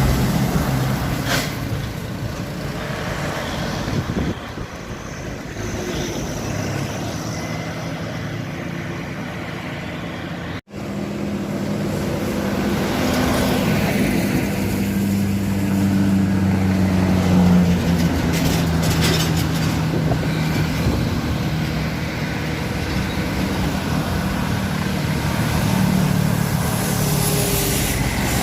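Truck engine running with road noise. The sound breaks off abruptly about ten seconds in, and after that a steadier, stronger engine hum with a low drone carries on.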